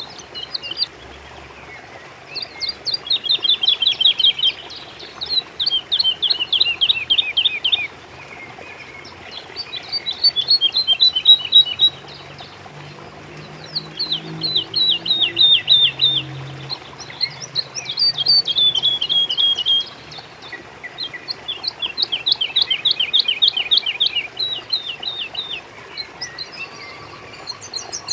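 A songbird singing the same song again and again: each phrase is a fast run of sharp, downward-sweeping chirps lasting two to three seconds, about seven phrases with short pauses between them, over a faint steady background hiss.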